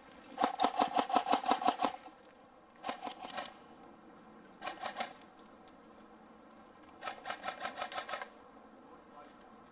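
Airsoft gun firing on full auto in four bursts of rapid, evenly spaced shots. The first burst is the longest and loudest, at about a second and a half; the later ones are shorter.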